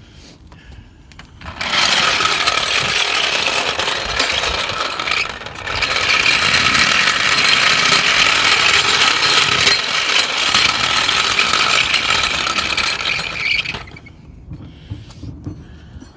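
Steel floor jack rolled across a concrete driveway, its metal wheels grinding and rattling loudly, in two pushes with a short break about five seconds in.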